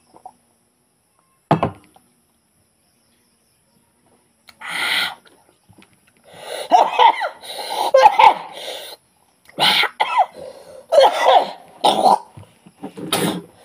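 A man coughing and making short throaty vocal noises: single bursts early on, then a quicker series over the second half.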